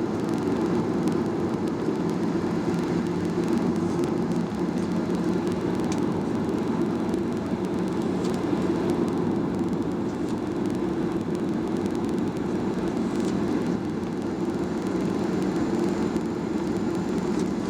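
Steady hum of a Skymark Boeing 737-800 heard from inside the passenger cabin: a constant low drone of engines and cabin air with no change.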